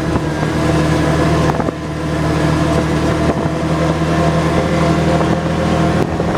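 ATV engine running at a steady speed, with a few sharp knocks along the way.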